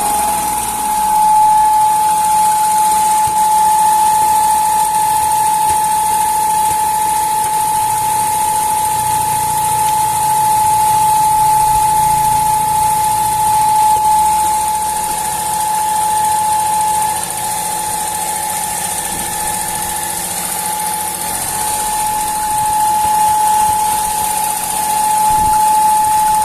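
Fiat Uno's 1.0 Firefly three-cylinder engine running with a steady, high-pitched whistle over the engine noise. The whistle comes from a punctured diaphragm in the valve cover.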